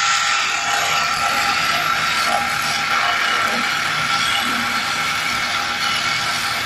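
Wood lathe running while a hand-held turning tool cuts a spinning wooden spindle: a steady scraping hiss of the cut, with a constant tone from the machine underneath.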